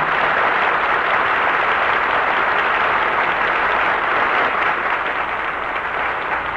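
Studio audience applauding, a steady clapping that thins a little toward the end.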